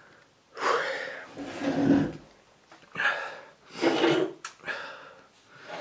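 A man breathing out hard in two long, noisy exhales about two seconds apart, reacting to the burning of food seasoned with pepper spray.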